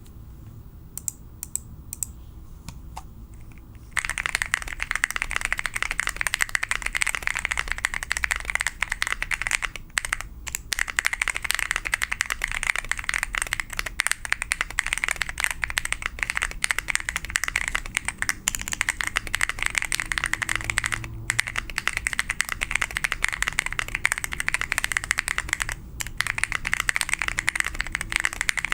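Mechanical keyboard being typed on: a GK64XS in an acrylic case with an FR4 plate, lubed Feker Panda tactile switches and KAT keycaps. A few scattered key presses, then about four seconds in fast, continuous typing begins, with a few brief pauses.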